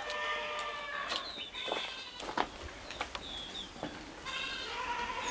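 An animal bleating: one long call held a little over a second, then a second, higher call about four seconds in. Short falling bird chirps and a few light knocks fall in between.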